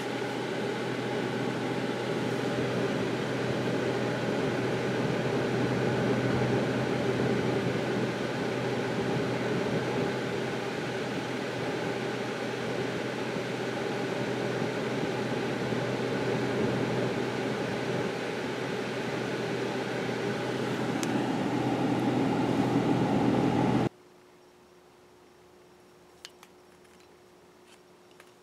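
The EZ30 flat-six engine of a 2002 Subaru Outback idling steadily, running in closed loop on new oxygen sensors. It cuts off suddenly about 24 seconds in, leaving a faint hum and a few small clicks.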